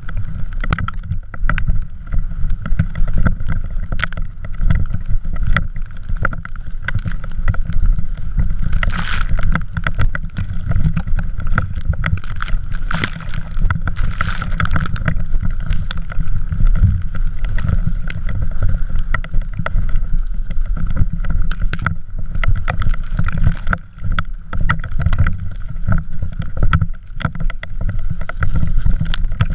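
A drift trike ridden over snow: heavy wind buffeting on the camera microphone, with constant rattling, knocking and scraping as the trike's hard plastic-sleeved rear wheels slide over the snow. The hissing scrape grows louder about nine seconds in, and again from about twelve to fifteen seconds in.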